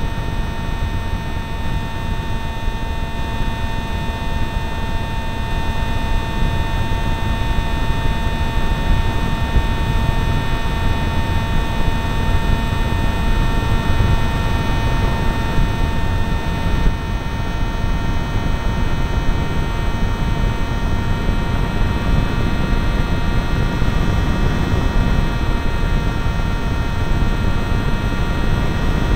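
Zagi v4 RC flying wing's motor and propeller heard from the onboard camera in flight: a steady, unbroken whine over a low rush of wind.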